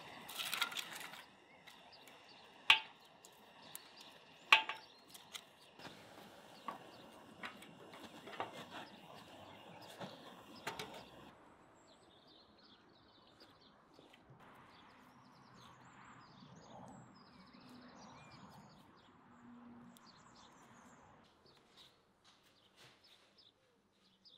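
Sharp clicks and metallic clinks from a wood-fired samovar as its fire is started and its chimney pipe handled, two of them loud and ringing. The second half is quieter, with birds chirping.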